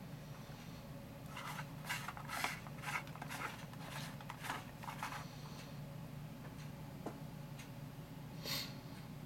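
Handling noise: a run of short, light rubs and scrapes for a few seconds, one more near the end, over a steady low hum.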